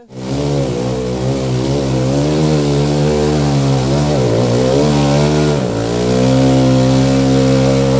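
Trail dirt-bike engine running hard at steady high revs. It starts suddenly and sags briefly twice in the middle.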